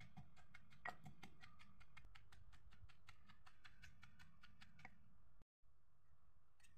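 Wooden pestle pounding som tam in a clay mortar: quick, even taps, about four or five a second, that stop about five seconds in.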